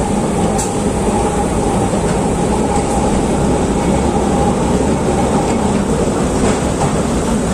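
Electric tram running along its street track, heard from on board: a steady rumble of steel wheels on the rails, with a thin whine over it for the first few seconds.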